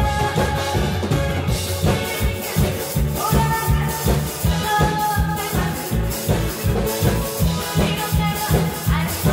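A woman singing into a microphone over an amplified backing track with a steady beat, about two beats a second.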